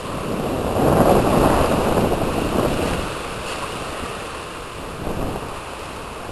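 Water sloshing in a plastic paddling pool as a Samoyed dips its head in, bobbing for apples; the splashing swells about a second in and dies down after about three seconds, with a smaller slosh near the end.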